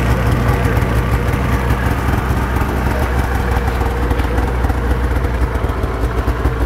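2020 Arctic Cat Riot 800 snowmobile's two-stroke twin engine idling steadily.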